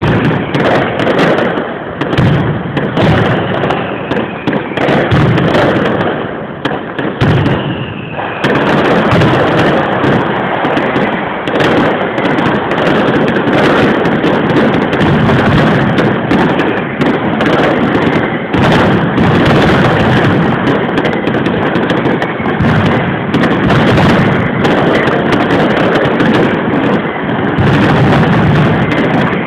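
Caballer's mascletà: a dense, unbroken barrage of firecracker bangs and aerial bursts, with thin whistles gliding in pitch over the first eight seconds or so.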